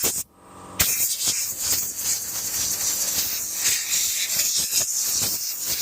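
Compressed-air blow gun hissing as it blows dust out of a Dyson stick vacuum's motor unit. The air stops for a moment near the start and comes back on just under a second in.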